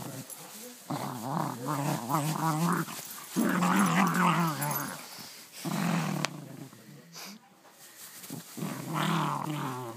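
Puggle growling in a warbling, gremlin-like voice while it mouths and plays with a toy. The growls come in four bouts of a second or two each, with short pauses between them.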